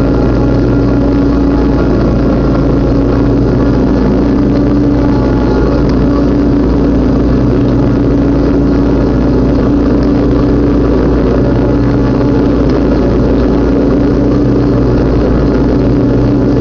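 Riding lawn mower engine running steadily under load while cutting tall grass, at an even, unchanging speed and close to the microphone.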